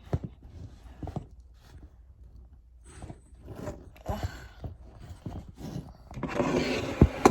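Handling noise: rustling with scattered knocks and clicks as objects are moved about. A louder rustle near the end finishes with a sharp knock.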